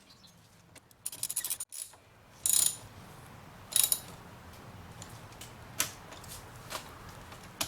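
Socket ratchet clicking in short bursts, then a few single clicks, as the nut on the negative battery terminal clamp is tightened.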